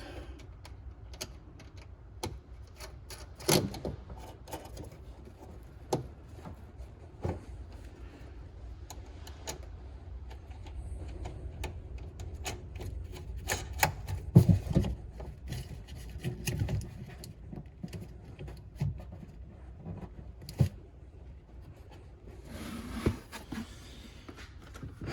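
Scattered clicks, knocks and scraping of small metal and plastic car parts and hand tools being handled and fitted, with a cluster of louder knocks about halfway through.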